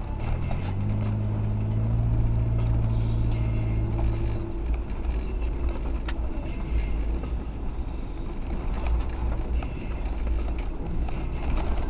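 Suzuki Jimny 4x4 running on an off-road trail: the engine holds a steady pitch for about four seconds, then drops back to a low rumble.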